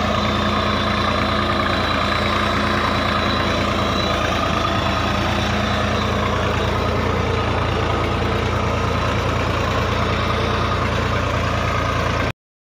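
Massey Ferguson 240 tractor's three-cylinder Perkins diesel running steadily under load as it pulls a disc ridger through the soil. The sound cuts off suddenly near the end.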